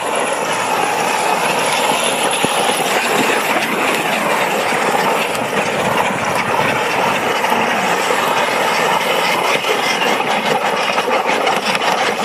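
Electric RC truggy running on a 5S LiPo pack: motor and drivetrain whine rising and falling in pitch as it speeds up and slows, over continuous tyre and road noise.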